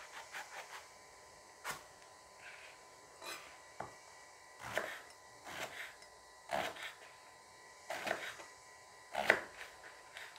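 Knife cutting a long green eggplant held in the hand, with chunks dropping onto a wooden cutting board: a string of irregular short knocks and cuts, the loudest about nine seconds in.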